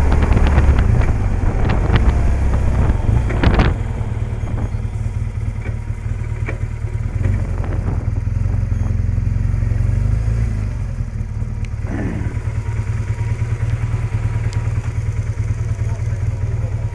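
BMW motorcycle engine running as the bike is ridden, with louder riding noise at first. It eases off about three and a half seconds in as the bike slows, then idles steadily while stopped.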